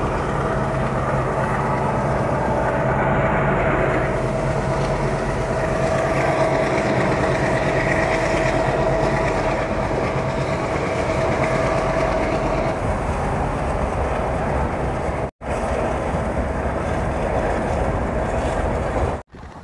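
Running noise of a moving express passenger train heard from an open coach doorway: wheels on the rails and rushing air, with a steady whine through the middle. The sound cuts out for a moment about three-quarters of the way through.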